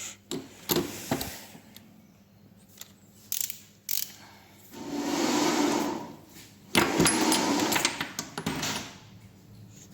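Ratchet wrench clicking in two long runs, about five and seven seconds in, with a few sharp knocks before them, as the engine is turned over by hand after torquing.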